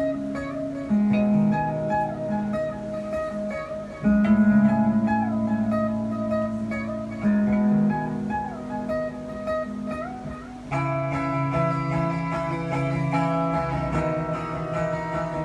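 Background music led by a guitar, with notes that slide in pitch and a change of chord about every three seconds.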